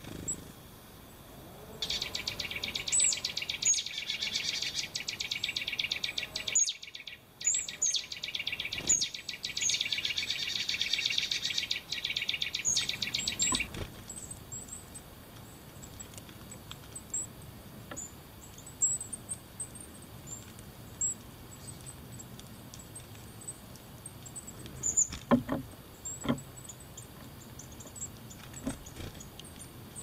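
Small songbirds at a winter feeder give many short, high, thin chirps. A loud, fast, even rattle runs from about two seconds in to about fourteen seconds, breaking off briefly near the middle, and a few sharp knocks come near the end.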